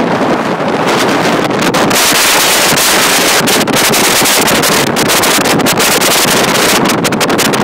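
Strong wind blasting across a phone's microphone in a loud, rushing noise that grows stronger about a second in, with waves breaking on a shingle beach underneath.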